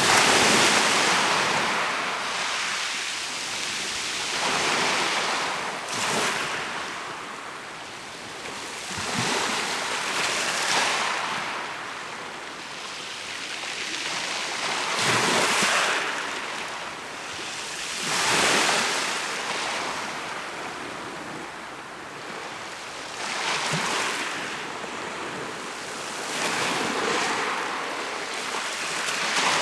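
Mediterranean Sea waves breaking and washing onto the shore, in swells every few seconds.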